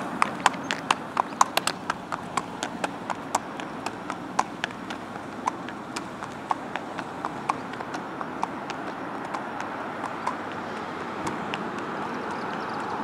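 Hooves of a buckskin Quarter Horse gelding clip-clopping on asphalt at a walk, sharp and distinct at first, then fainter as the horse moves away. A steady traffic hum underneath grows slightly near the end.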